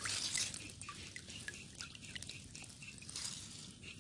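Water dripping and trickling around a mesh fish trap being handled, with many small scattered drops and a couple of brief splashy swells.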